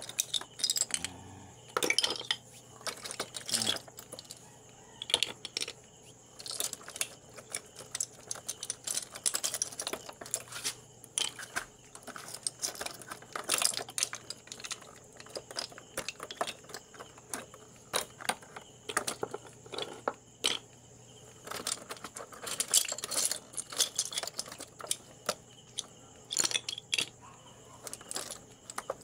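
Hard seashells, spider conchs among them, clicking and clattering against each other and the basin as the catch is handled, in many irregular sharp clicks and knocks.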